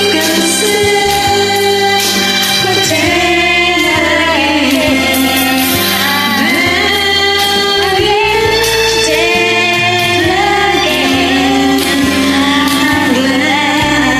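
Women singing a karaoke duet over a recorded instrumental backing track.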